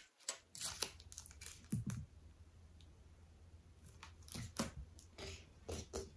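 Plastic icing piping bags crinkling and rustling as they are picked up and handled, in two spells of quick crackles, the first just after the start and the second from about four seconds in.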